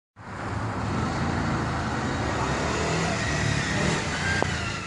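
A motor vehicle's engine running steadily with road noise, with a short click near the end.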